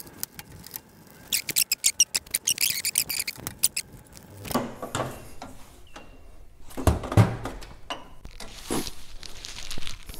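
A ratchet wrench clicking in quick runs on the radiator's mounting bolts, then knocks and a couple of heavier thuds as the aluminium radiator and fan assembly is lifted out of the engine bay.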